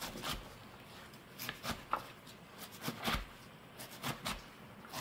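Kitchen knife chopping blanched spinach on a wooden cutting board: a dozen or so short, uneven knocks of the blade through the soft leaves onto the board.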